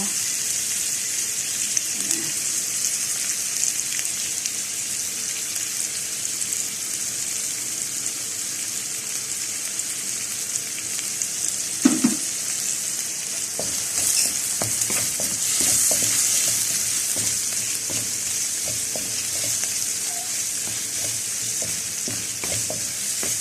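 Chopped onion, garlic and ginger sizzling steadily in hot oil in a pan. There is one sharp knock about halfway through, then irregular light clicks and scrapes of stirring until the end.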